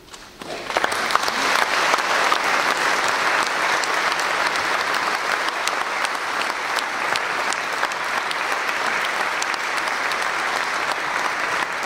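Audience applauding, starting about half a second in and building within a second to steady, dense clapping.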